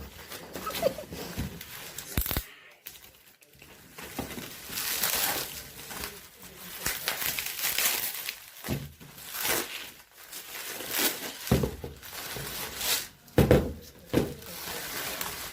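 Plastic packaging crinkling and rustling in irregular bursts, with some tearing, as a packaged item is handled and opened.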